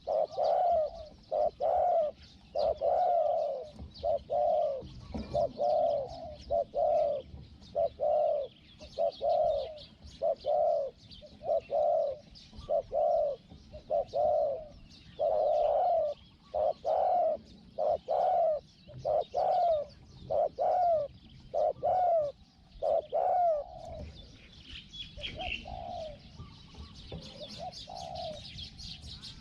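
Spotted dove cooing over and over, a run of low coos about one a second that thins out and grows fainter after about 24 s. Small birds chirp faintly in the background.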